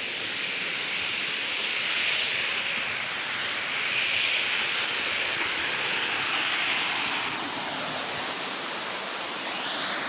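Steady rush of a waterfall: a continuous hiss of falling water that swells and eases a little.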